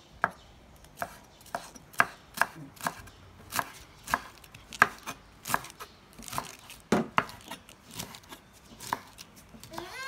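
Kitchen knife chopping cabbage on a wooden cutting board: sharp knocks of the blade on the board, about two a second at an uneven pace.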